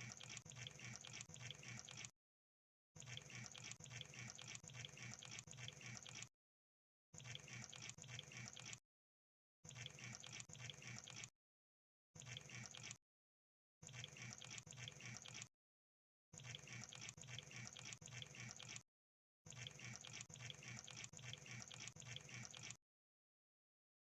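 Crab sound effect: eight bursts of fast crackling clicks, each one to four seconds long, separated by short dead silences.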